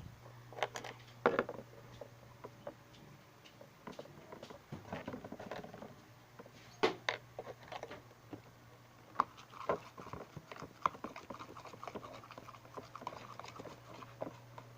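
Homemade glue slime being squished and worked by hand: irregular sticky clicks and wet crackles, with a few louder snaps.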